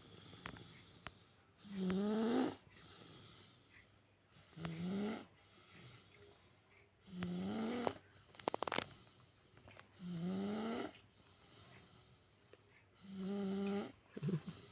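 A baby snoring loudly: five pitched snores about three seconds apart, each rising slightly in pitch, with quieter breathing between them.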